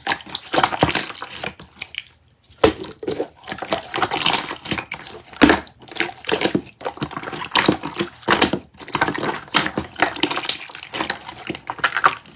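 Slime being pressed and squished by hand, giving a long run of wet, irregular crackling pops and squelches.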